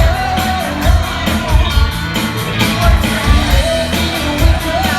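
Live band playing rock music with a steady drum beat, bass, and a sung vocal line.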